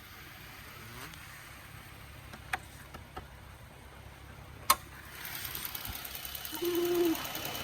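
A vehicle engine idling with a fast, even clatter, which comes up about five seconds in over a steady low hum; two sharp clicks come before it.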